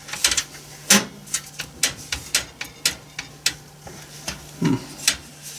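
Irregular sharp clicks and light knocks of hardware being handled inside a computer case as a large graphics card is fitted, a few a second, with a louder knock about a second in and another near the end.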